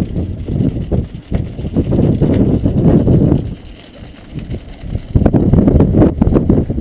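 Wind buffeting the microphone of a GoPro Hero 2 in an open skeleton housing on a moving bicycle: a low rumble that comes in gusts, loudest about two seconds in and again from about five seconds in.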